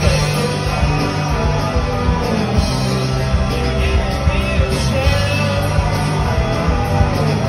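Live rock band playing: electric guitars over a drum kit, with held low notes underneath and no break in the music.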